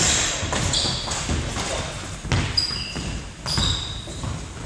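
Football kicks and bounces on a wooden sports-hall floor, about one sharp thud a second, with short high squeaks of trainers on the floor in between. Everything echoes in the large hall.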